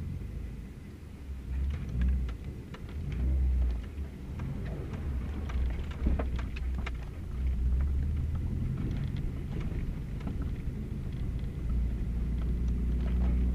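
Subaru Baja driving slowly over a rough dirt forest road, heard from inside the cabin: a steady low engine and drivetrain rumble, with many sharp rattles and knocks over the bumps, thickest in the first half.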